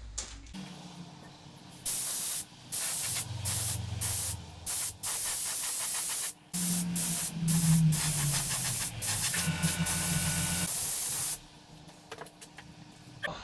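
Compressed-air spray gun spraying base coat: a hiss of air and paint that starts and stops in a string of trigger pulls over about nine seconds, then stops.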